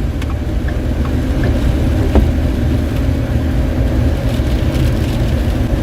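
Steady road and engine drone inside a car's cabin while driving on a wet road, with light rain noise above it.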